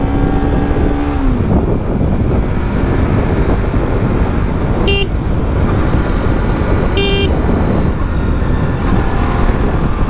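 Steady rumble of a moving vehicle on the road, with a steady hum that drops away about a second in. Two short vehicle horn beeps sound about two seconds apart near the middle.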